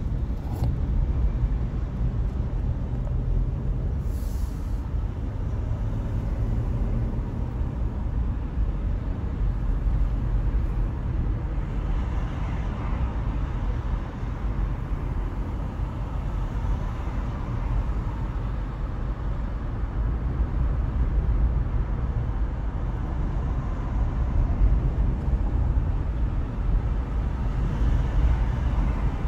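A car driving along: a steady low rumble of road and engine noise.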